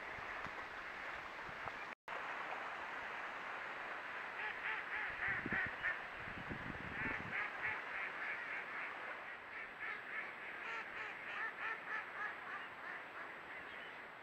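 A large flock of mallards quacking and chattering without a break, with rapid runs of loud quacks standing out in the middle and again near the end. The sound cuts out for an instant about two seconds in.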